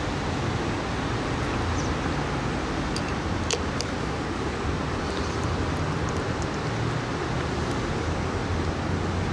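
Steady outdoor background rumble, strongest in the low range and like distant road traffic, with a few faint, short high ticks about three and a half seconds in.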